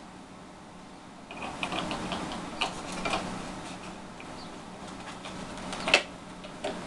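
Irregular small clicks and taps of a plastic propeller and spinner being handled and fitted onto a model airplane's nose, with one sharper click about six seconds in.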